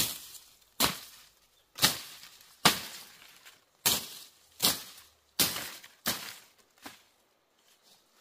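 Machete chopping through grass and bamboo stalks: about nine sharp cutting strokes, roughly one a second, stopping about seven seconds in.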